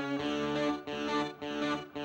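Live rock band music led by an electric guitar through effects, repeating a chord figure about twice a second with a short break before each new chord.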